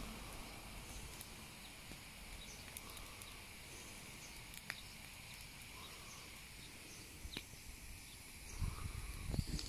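Small garden bonfire of brush and dry grass burning quietly with an occasional faint crackle, with faint birdsong in the background. Near the end come low rumbling bumps on the microphone.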